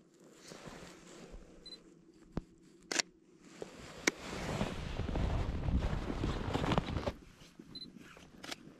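Sony A7 III camera giving a short high autofocus beep, then its shutter clicking several times, the loudest click about four seconds in. After that come a few seconds of loud wind and clothing noise on the microphone, and another short beep near the end.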